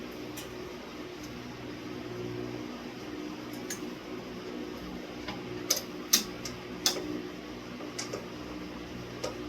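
Steady low hum with a handful of short, sharp metallic clicks and taps in the second half, the loudest about six seconds in: hardware and tools being handled during ceiling fan assembly.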